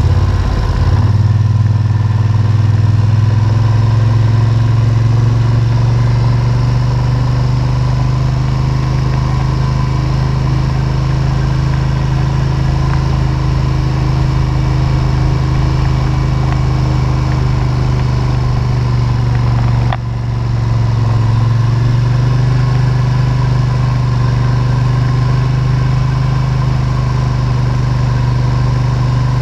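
ATV engine running steadily, with a brief dip in level about twenty seconds in before it picks back up.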